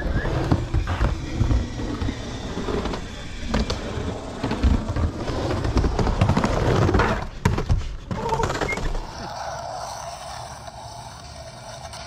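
Skateboard wheels rumbling as the board rolls through a mini-ramp bowl, with repeated clacks and knocks from the board and trucks and a burst of sharp knocks about seven seconds in. After about nine seconds the rumble stops and a quieter hiss takes over.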